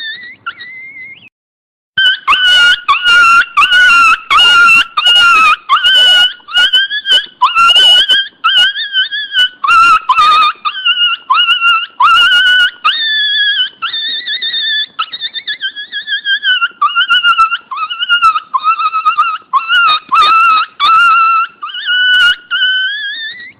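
A dog whining in a long, high-pitched run whose pitch wavers up and down, with a short break about a second and a half in. Short sharp yips are mixed in through the first half.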